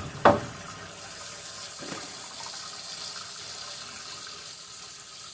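Kitchen sink tap running steadily into the basin, with one brief loud sound just after the start.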